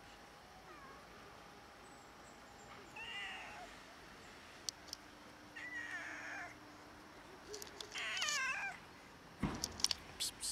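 A young tabby street cat meowing three times, a few seconds apart, the last call the loudest and most wavering. A few sharp clicks, and near the end a louder thump.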